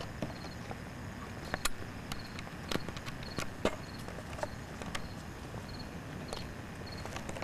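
Footsteps of a person walking outdoors: irregular scuffs and clicks, loudest through the middle. Behind them a cricket chirps in short, evenly repeated high trills.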